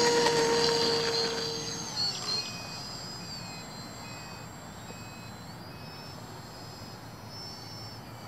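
Electric motor and propeller of a Cessna TTX foam RC plane at full take-off throttle: a steady high whine that fades away as the plane climbs off. A string of short, evenly spaced beeps sounds a few seconds in.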